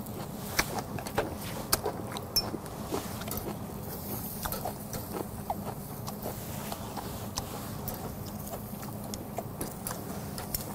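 Scattered small clicks and crackles over a steady low hiss: beef tongue sizzling on a charcoal grill, with chewing close to the microphone. In the second half, metal tongs move the pieces on the wire grate.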